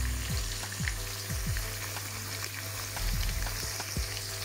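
Thin raw potato slices sizzling in hot oil in a frying pan, with a few soft plops as more slices are dropped in by hand, over a steady low hum.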